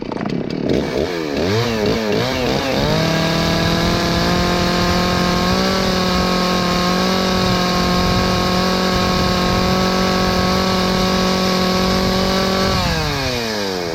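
Stihl two-stroke chainsaw blipped a few times, then held at full throttle for about ten seconds with the chain spinning just above the wood without cutting: a check that the chain oiler is throwing oil. Near the end the throttle is let off and the engine winds down.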